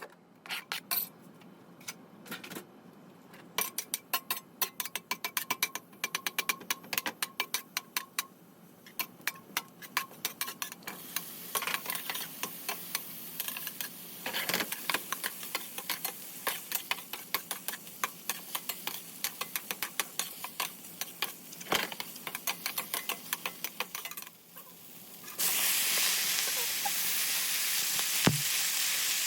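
Runs of quick clicks and taps of kitchen utensils over a faint sizzle that slowly builds. About 25 seconds in, a sudden loud, steady sizzle starts as food goes into hot oil in the pan.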